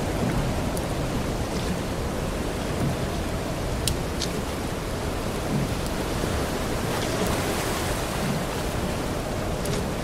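Steady rushing water noise with a continuous deep rumble underneath, and a few faint sharp ticks, two of them about four seconds in and one near the end.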